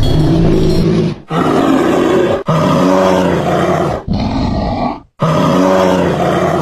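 An animal's deep, loud calls, heard as several short clips spliced together with abrupt cuts between them.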